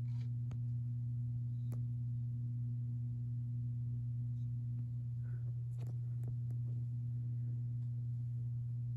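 Steady low electrical hum with a fainter higher overtone, unchanging throughout, and a few faint clicks.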